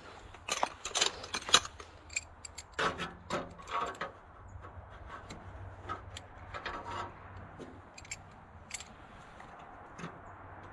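Hand tools working on a tractor bolt: irregular clicks and metal scraping, in two busy clusters in the first four seconds, then lighter rubbing and scattered ticks.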